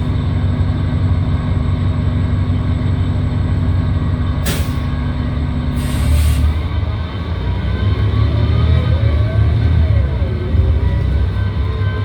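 City transit bus heard from inside the cabin: the engine drones steadily, two short air hisses come about four and six seconds in, and then the engine note changes, with a faint whine gliding up and down.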